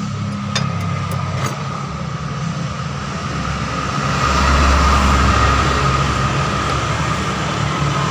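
Steady low mechanical rumble with a constant hum, growing louder about four seconds in, with a few faint metallic clicks from a socket wrench in the first two seconds.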